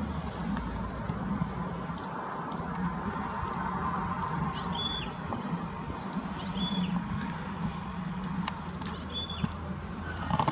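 Small birds chirping, short high notes repeating every second or so at two pitches, over a steady low rumble of distant engine noise.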